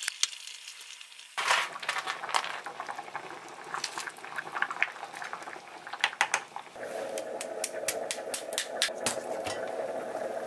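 A knife clicks lightly on a wooden cutting board, then a pot of red tofu stew bubbles at the boil, with scattered clinks of a wooden spoon against the pot.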